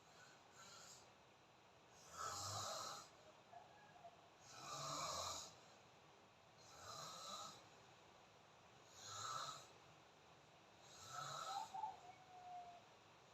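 A person snoring: five snores, each about a second long, coming roughly every two seconds.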